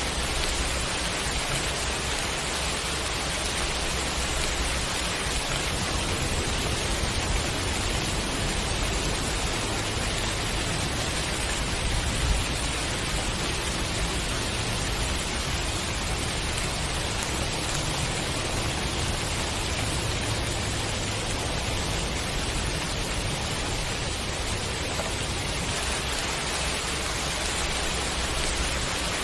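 Steady rain shower: a dense, even hiss of rainfall with a low rumble underneath.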